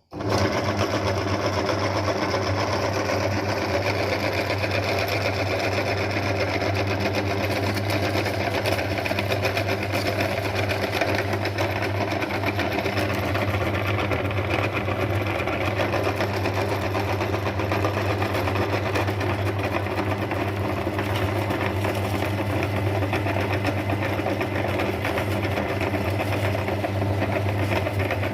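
Electric meat grinder motor switching on abruptly and running steadily, a constant low hum with a mechanical whir above it.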